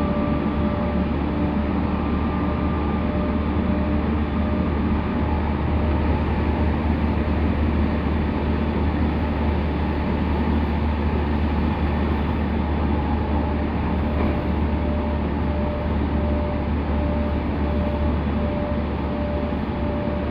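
Interior running noise of a JR East E217 series commuter train car at speed: a steady rumble of wheels on rail with a low hum and a faint steady whine.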